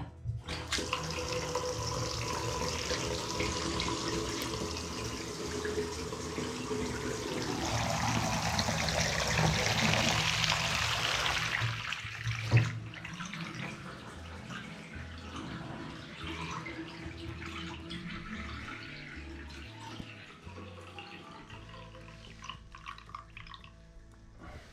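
Water running from a newly fitted bath mixer tap into the bathtub, turned on near the start. About halfway through it is shut off with a knock and the flow stops.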